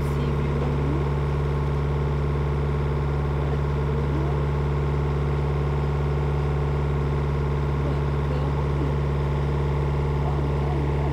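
Sailboat's inboard diesel engine running steadily under way, a constant low drone heard from inside the cabin.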